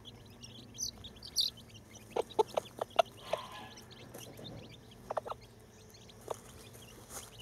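Millefleur Pekin hen clucking to her chicks: a quick run of about five short clucks a couple of seconds in, then a pair and a single one later. Thin, high peeping from the chicks runs underneath.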